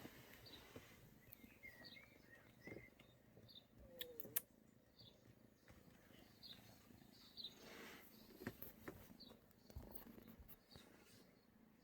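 Faint, scattered chirps of small birds, with a short warbling call about two seconds in and a few sharp clicks about four seconds in.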